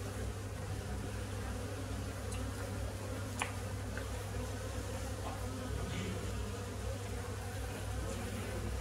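Honeybees buzzing steadily as they fly around a colony's exposed comb in an opened wall cavity. The colony is weak, with no brood, and disturbed by the cut-out. A faint tap sounds about a third of the way in.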